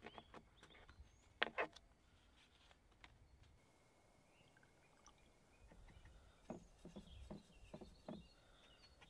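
Quiet desk handling of watercolor painting supplies: a couple of sharp knocks about a second and a half in, then a run of light taps and clicks near the end. Faint bird chirps sound in the background.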